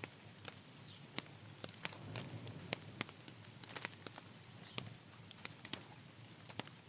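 Rain: irregular sharp drips tapping on a hard surface, a few a second, over a soft steady hiss of rainfall.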